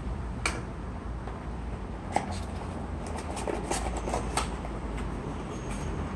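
Light handling of a cardboard phone box and its contents on a stone countertop: a few short taps and clicks, with some faint rustling a little after the middle, over a steady low hum.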